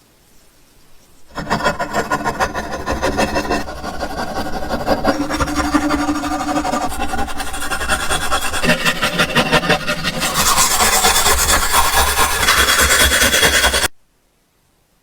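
Rapid abrasive scraping, as in sanding or scrubbing off rust and paint. It starts about a second in, turns harsher about two-thirds of the way through, and cuts off abruptly near the end.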